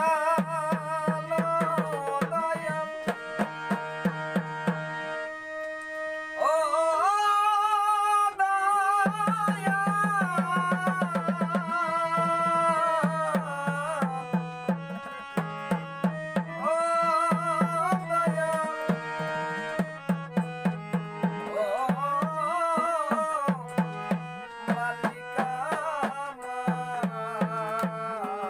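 A Bengali devotional song: a man singing over a harmonium's held reed chords, with a small hand drum beaten in a steady quick rhythm. The voice comes and goes in phrases, and there is a stretch of harmonium and drum alone early on.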